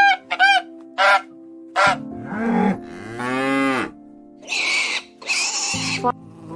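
A quick sequence of farm animal calls over steady background music: four short high calls, then two longer calls rising and falling in pitch like a cow mooing, then two rough, noisy calls.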